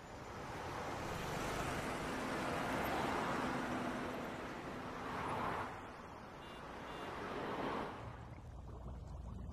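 Road traffic: cars passing by one after another, a rushing noise that swells and fades three times, then dies down near the end, leaving a low steady hum.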